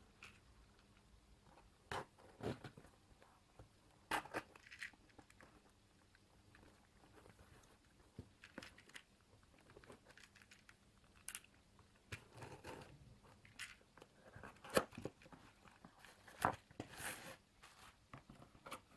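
Stapled cardboard packaging being torn open and handled by hand: scattered crackles, tears and rustles of card, with a longer rustle near the end as the bubble-wrapped contents come out.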